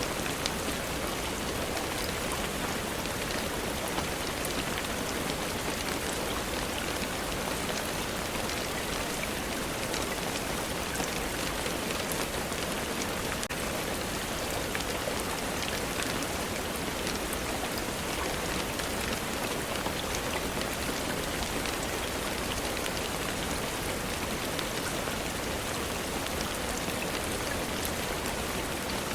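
Steady rainfall, an even hiss with scattered faint ticks of drops.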